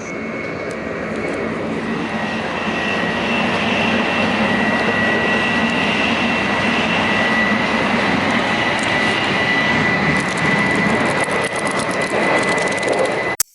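Running noise inside a Tokaido Shinkansen Nozomi car: a steady rumble and rush with a thin high whine, growing louder over the first few seconds and then holding. It cuts off suddenly near the end.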